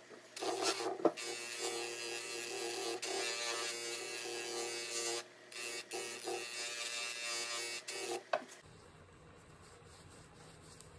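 Bench buffer's electric motor running as a nickel-plated bolt is held against the spinning buffing wheel to polish it: a steady buzzing whine with two short breaks around five to six seconds in. It cuts off abruptly about eight and a half seconds in, leaving a faint hum.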